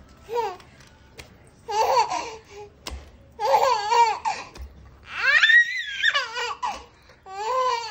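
Baby girl laughing in short bursts of giggles, about five in all, with a longer, higher-pitched squeal of laughter about five seconds in.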